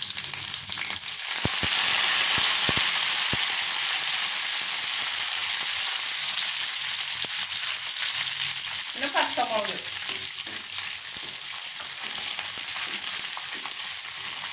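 Hot oil sizzling in a clay pot as green chillies and curry leaves are dropped in about a second in. The sizzle jumps up loudly, with a few sharp pops and spatters over the next couple of seconds, then settles into a steady frying sizzle that slowly eases.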